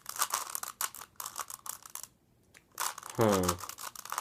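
A 3x3 Rubik's Cube being turned by hand: rapid plastic clicks and clacks of the layers rotating, with a brief pause about two seconds in. A short hummed vocal sound comes about three seconds in.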